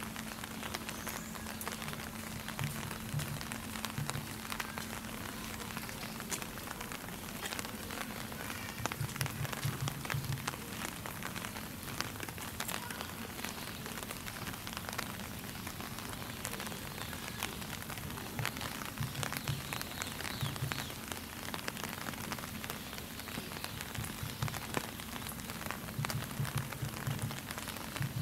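Steady rain falling, an even hiss dotted with many small drop clicks.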